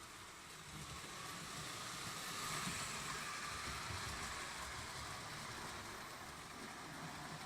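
Postwar Lionel O gauge steam locomotive and cars running on tinplate track, a steady rumble and hiss of the motor and wheels that grows louder about two to three seconds in and then fades a little, as the train passes close by.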